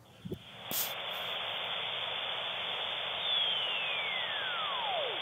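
Static hiss from an RTL-SDR receiver's sideband audio, coming up about half a second in, with a Starlink satellite beacon carrier sweeping through it near the end as a thin whistle falling smoothly from high to low pitch. The falling pitch is the Doppler shift of the fast-moving low-Earth-orbit satellite.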